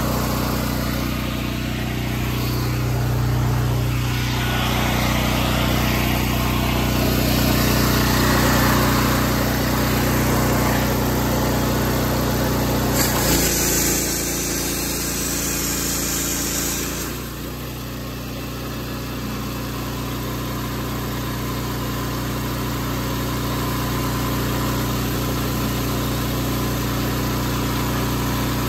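Small pull-start gasoline engine of a direct-drive pressure washer running steadily, set to full throttle, while the wand sprays water. About thirteen seconds in a louder hiss lasts about four seconds, and the engine note shifts as it ends.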